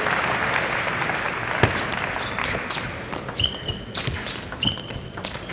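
Crowd applause in a hall, fading over the first couple of seconds. From about three seconds in, a table tennis rally follows: the celluloid-type ball clicks sharply off the bats and table several times, some hits with a short high ping.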